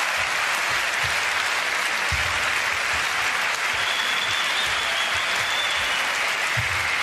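Steady arena crowd applause and noise, with irregular dull thumps of badminton players' footsteps on the court mat underneath.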